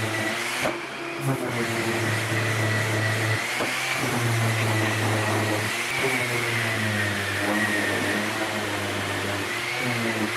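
Electric random orbital sander running steadily on carved ash drawer frames, its whine wavering slightly in pitch as it is pressed and moved over the wood.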